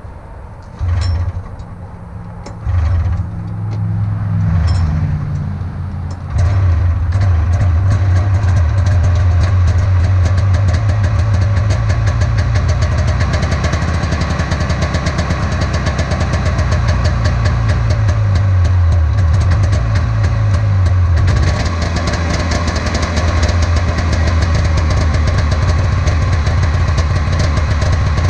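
Cold start of a 1994 Polaris Indy 440 snowmobile's two-stroke engine: it fires in short bursts over the first few seconds as it is pulled over, catches about six seconds in, and then runs steadily at idle.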